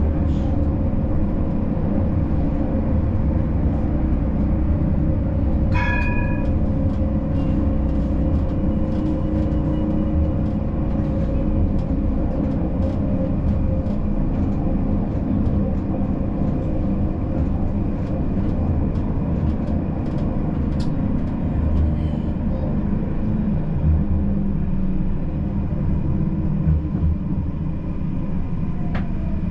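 Siemens Combino tram running along the track, heard from the driver's cab: a steady rumble of wheels on rail with a constant motor hum. A brief ringing tone sounds about six seconds in, and near the end a falling whine as the tram's traction motors slow down.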